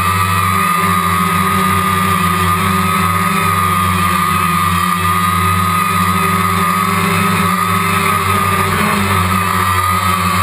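DJI Phantom quadcopter's four motors and propellers in flight, a loud steady buzzing whine picked up by the GoPro mounted on the drone inside its waterproof housing. The pitch wavers slightly as the drone manoeuvres.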